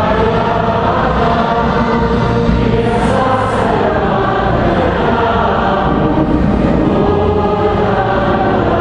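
Choir singing liturgical music, with several voices holding long, slowly changing notes.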